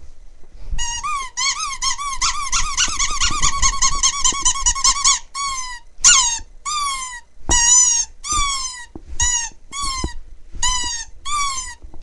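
Rubber squeaky toy squeezed by hand over and over: a long warbling squeal of about four seconds, then a run of about ten short squeaks, each falling in pitch.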